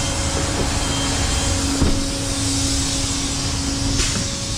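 Flatbed tow truck running with its hydraulics engaged to unload a car: a steady hum from engine and pump, with a couple of short clanks.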